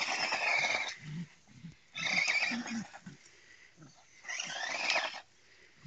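Small electric RC monster truck revving in three bursts of about a second each: its motor whines, rising in pitch in the last burst, and its tyres spin on gravel. Between the bursts, a pug snorts and grunts in short low puffs several times a second.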